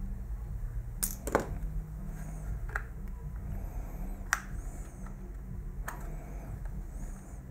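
Hard plastic clicks and knocks from handling an unscrewed handheld digital multimeter's case and setting a small screwdriver down. About five sharp clicks are spread through it, the loudest about four seconds in, over a low steady hum.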